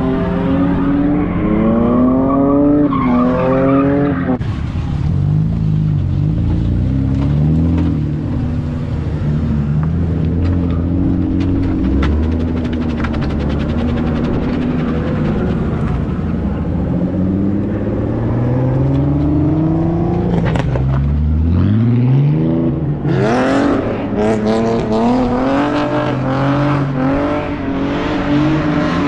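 Drift car engines revving up and down, the pitch rising and falling over and over, with steady tyre and track noise. Near the end one engine climbs sharply as a car accelerates hard.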